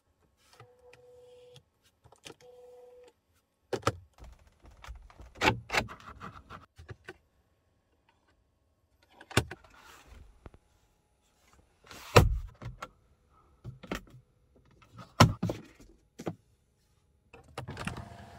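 Two short electronic beeps from the Bentley Flying Spur Mulliner's rear-seat touchscreen controller as it is tapped, followed by a series of clicks and knocks as the rear-cabin compartments and door trim are handled.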